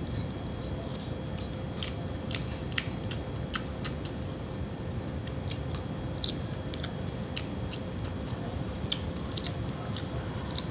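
A person chewing a mouthful of rice and pork stew, with many short, sharp, wet mouth clicks and smacks, over a steady low hum.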